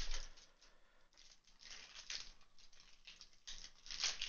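Thin plastic wrap crinkling as it is peeled off a Great Ball container by hand. A light tap at the start, then soft crackles from about a second and a half in, busier near the end.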